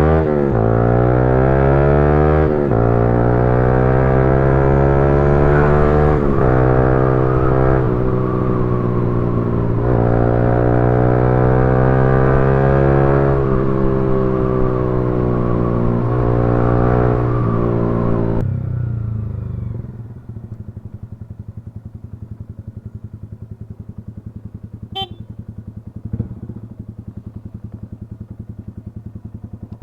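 Toyota Wigo's three-cylinder engine held at raised revs, its pitch sagging and climbing back every few seconds, then dropping to a steady, pulsing idle about two-thirds of the way in. The car has a misfire, blamed on a faulty ignition coil.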